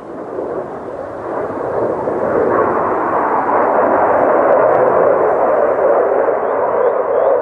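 Jet noise from French Navy Dassault Rafale M fighters, each with twin Snecma M88 turbofans, as they approach. It is a deep, even rush that swells over the first couple of seconds, then stays loud and steady.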